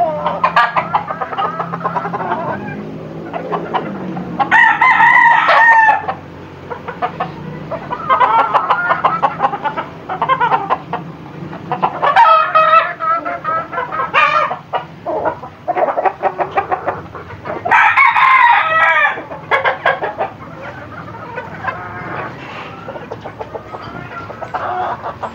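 Gamecock roosters crowing several times, each crow lasting a little over a second, with clucking in between.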